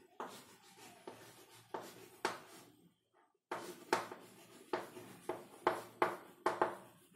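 Chalk writing on a blackboard: about a dozen short scratching strokes as a word is written, with a brief pause about three seconds in.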